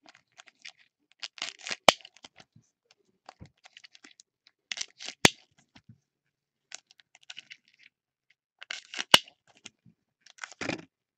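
Foil Topps Chrome card-pack wrappers crinkling and tearing as they are handled and opened, with three sharp snaps spaced a few seconds apart.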